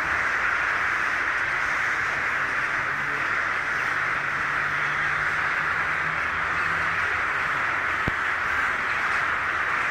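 A large flock of crows calling overhead: a continuous dense chorus of many overlapping caws.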